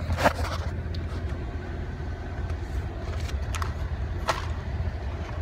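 Steady low hum of a car idling, heard inside the cabin, with a few short knocks and rattles as a plastic drink cup is handled in the cup holder.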